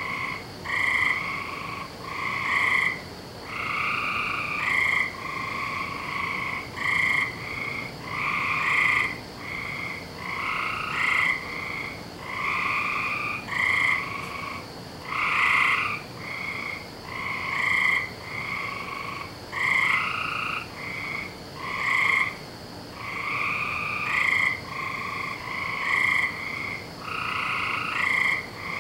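A chorus of several frogs croaking around a backyard pool, their short calls overlapping and repeating about once a second with no let-up. A faint steady high tone runs underneath.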